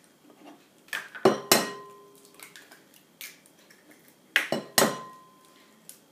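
Eggs tapped against the rim of a glass mixing bowl to crack them. There are three sharp knocks about a second in and two more about four and a half seconds in, each followed by a brief ring of the glass.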